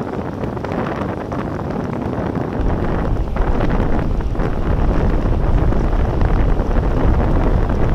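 Wind buffeting the microphone of a bike-mounted Cycliq camera while riding, a steady rushing noise that includes road noise. The low rumble grows heavier about two and a half seconds in.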